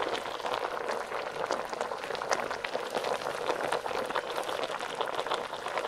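A pot of dinengdeng vegetable soup is bubbling at a simmer, making a dense, steady crackle of small pops. A wooden spoon stirs through the broth and greens.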